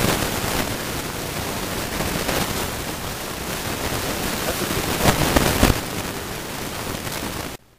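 Steady, loud rushing hiss with a few sharper knocks about five seconds in. It cuts off abruptly near the end.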